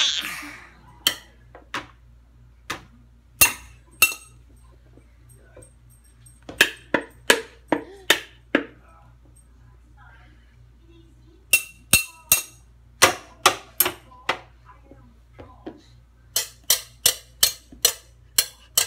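A toddler banging on a hard object, sharp clinking knocks in bursts of about three to four a second, with pauses of a couple of seconds between bursts.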